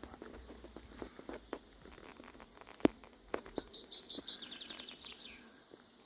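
A small bird singing a quick run of high chirps in the background, from about three and a half to five seconds in, over scattered faint clicks and knocks, the loudest a sharp click about three seconds in.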